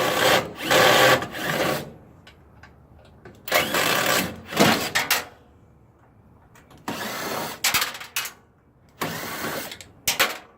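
Several bursts of rough scraping and rattling, each a second or two long with short pauses between, as parts and wires are pulled out of a scrapped appliance.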